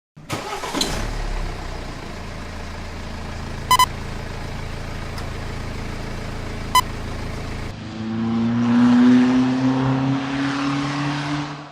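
A car engine running steadily, with two short beeps in the middle, then revving with a slowly rising pitch before fading out near the end.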